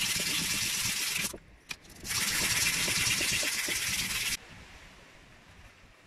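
Hand sanding: a small piece of wood rubbed on a sheet of sandpaper laid flat, a steady scratchy hiss. It breaks off briefly about a second in, with a single click in the gap, starts again, and stops suddenly a little after four seconds, leaving faint room tone.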